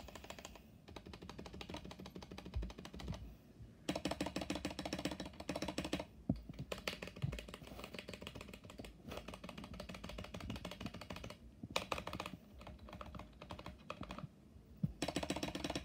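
Typing on a stock, unmodified Kemove Shadow mechanical keyboard: steady key clacks, with bursts of fast typing about four seconds in, near twelve seconds and at the end, and short pauses between runs.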